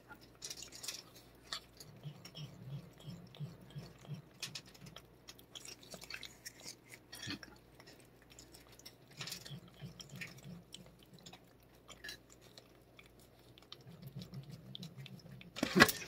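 Cat licking a squeeze tube of liquid cat treat, a run of small wet tongue clicks and smacks. A loud bump near the end.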